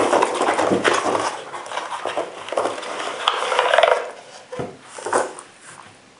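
Cardboard ammunition box being opened and a plastic cartridge tray of twenty .338 Winchester Magnum rounds slid out of it: rustling and scraping of cardboard and plastic, then a couple of light knocks as the tray is handled.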